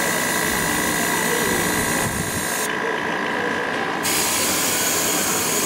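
Sandblast gun in a home-made sandblast cabinet, blasting grit at glass with a steady hiss. The blast stops abruptly for about a second near the middle, then resumes.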